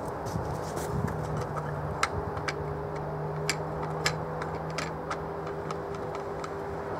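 Irregular light clicks and taps from handling a rifle as its sound moderator is fitted, over a steady low hum.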